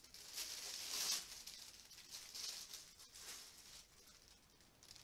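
Sheets of thin tissue paper rustling and crinkling as they are handled, in a few soft bursts, the fullest about a second in.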